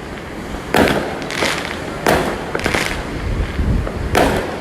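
Fireworks bursting: about five sharp bangs spread over four seconds, each followed by crackling, over a low rumble of wind.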